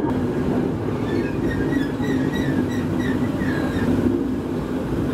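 A 20-ton railway brake van rolling slowly on the rails with a steady rumble. A string of short high squeaks from its wheels and running gear comes between about one and three and a half seconds in.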